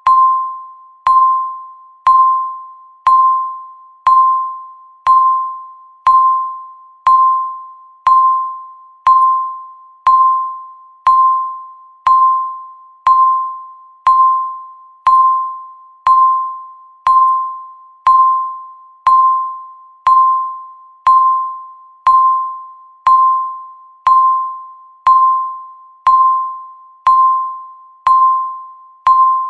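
Electronic countdown-timer beep, one steady-pitched tone sounding once every second, each beep struck sharply and fading out before the next. Each beep marks one second ticking off the countdown.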